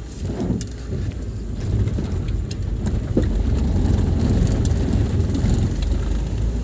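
Toyota Hiace van driving on a road test: a low engine and road rumble that grows louder about two seconds in as it picks up speed, with scattered light ticks.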